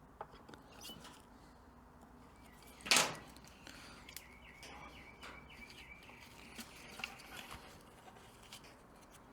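Faint handling noise of a plastic light housing and bulb, with one short, sharp knock about three seconds in and a few faint small clicks later.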